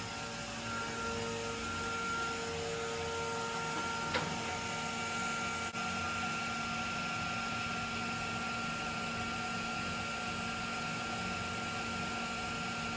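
Steady mechanical hum of equipment running, with several constant tones over an even noise, and a single faint click about four seconds in.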